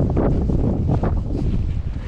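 Strong wind buffeting a GoPro 9's built-in microphone: a heavy, loud rumble with irregular crackles.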